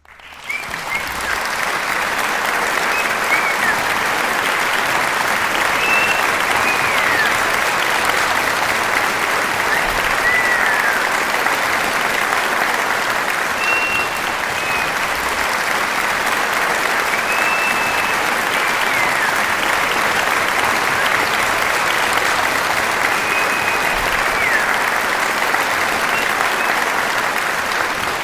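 Large crowd applauding steadily, a dense sustained clapping that fades in over the first second or so. A few short whistles rise and fall over the clapping every few seconds.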